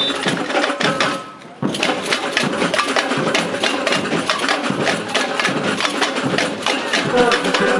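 Samba parade percussion playing a fast, driving rhythm of many strokes a second, with a brief drop about a second in.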